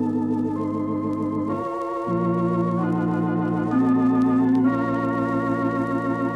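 Electric organ playing slow sustained chords with a wavering vibrato, moving to a new chord about every second: the closing theme organ music of an old-time radio drama.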